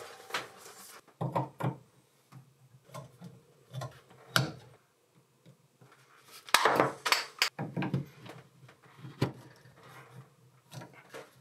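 Plumbing handling noises as PEX water tubing is worked into place and pushed onto brass fittings: scattered knocks, rubs and clinks of plastic and metal, with a louder cluster of knocks about seven seconds in.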